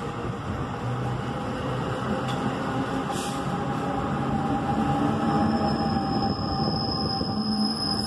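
An NJ Transit push-pull train of multilevel coaches rolls past at speed, with steady rumbling and clattering of wheels on rail that grows louder as its ALP-46A electric locomotive at the rear draws near. A high steady whine joins about five seconds in.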